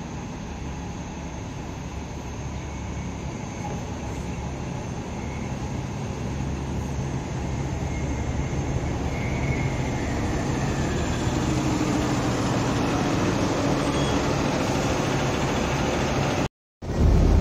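Hybrid diesel-electric transit bus driving in and pulling past, its engine and drive rumble growing steadily louder as it nears, with a faint rising whine about halfway through.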